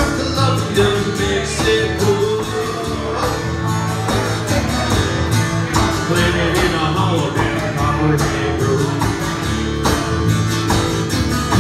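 Live song with guitar strumming and a singing voice.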